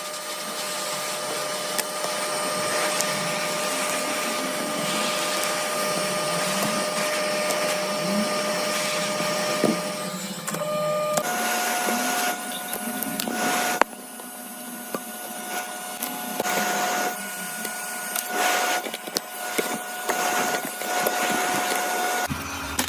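An electric machine running steadily with a whining hum over a hiss, its pitch stepping up slightly about halfway through, with a few clicks along the way.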